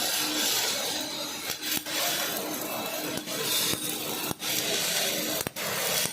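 MIG welding arc from a MEMCO Invermig 400 welder, a steady dense crackle, broken off very briefly a few times.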